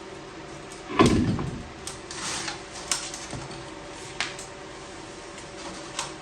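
A heavy thump about a second in, followed by several light clicks and knocks of metal parts being handled, over the steady hum of a space heater running in the garage.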